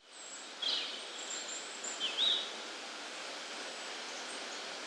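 Outdoor ambience with a steady hiss, over which small birds chirp a few times: two short chirps at about one and two seconds in, and thin high calls.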